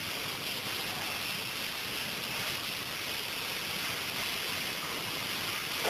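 A steady, even rushing hiss with no distinct knocks, clanks or tones.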